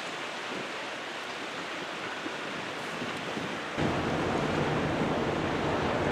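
Steady rushing of water washing along the hull of a passing container ship and its tug, mixed with wind on the microphone. About four seconds in, the noise turns louder and deeper and stays that way.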